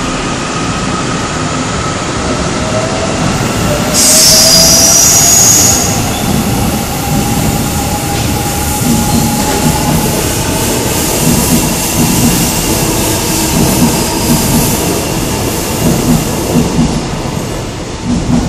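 Seoul Subway Line 7 7000-series electric train pulling out, its motors whining up in pitch as it gathers speed. About four seconds in there is a loud high-pitched squeal lasting about two seconds. After that the wheels clack rhythmically over the rail joints as the cars run past.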